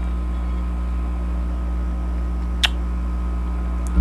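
Steady low electrical hum with a faint hiss under it, and a single short click about two-thirds of the way through.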